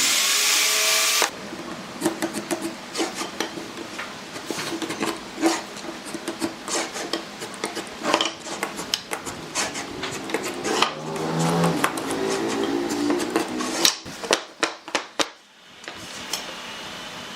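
Hand work on wood: a loud, hissing burst about a second long at the start, then irregular knocks, taps and rubbing of tools against wood.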